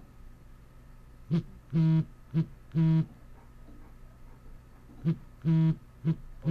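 Windows Phone smartphone on a wooden desk signalling an incoming call: low buzzing pulses on one steady pitch in a short-long-short-long pattern, heard twice.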